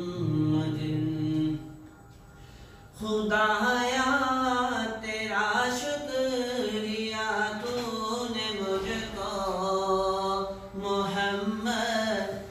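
A man's solo voice chanting an unaccompanied Islamic devotional recitation in praise of the Prophet (naat khwani style), in long, drawn-out melodic notes, with a short pause about two seconds in.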